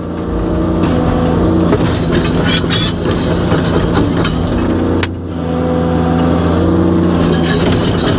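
Excavator's diesel engine running steadily under load, heard from inside the cab, with hydraulic whine rising and falling as the boom and bucket are worked. A sharp click about five seconds in, after which the engine briefly eases.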